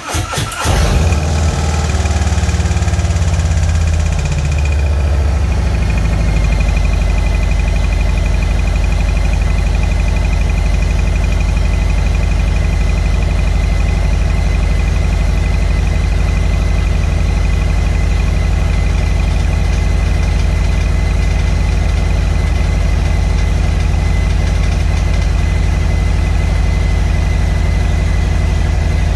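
Harley-Davidson Road Glide Special's Milwaukee-Eight 114 V-twin starting up and idling, running faster for the first few seconds, then settling to a steady lower idle about five seconds in. The bike makes a rattling noise at idle.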